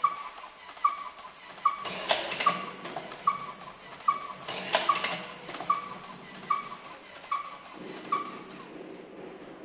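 Electric cigarette-filling machine cycling as it packs tobacco into tubes: a short whining note with a click about every 0.8 s, and louder clattering strokes about two and five seconds in. The cycling stops about eight seconds in.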